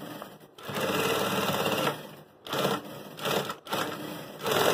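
Sun Special industrial sewing machine stitching a bag seam in short runs, stopping and starting several times as the bag is turned under the needle. The first run lasts over a second, and the later ones are each about half a second.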